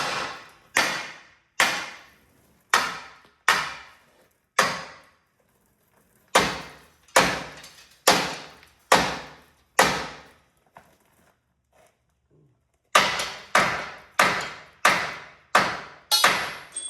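Hammer blows on steel, driving rusted bolts out of a semi-truck frame's rear crossmember. There are three runs of separate ringing strikes, about one a second: six, then five, then seven, with short pauses between. The last strike leaves a clear metallic ring.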